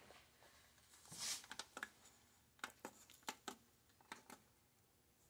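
Faint plastic clicks, mostly in pairs, from pressing the Ninja blender's control buttons and seating its lid, after a short rustle about a second in. No motor runs: the blender will not start because the lid is not locked on right.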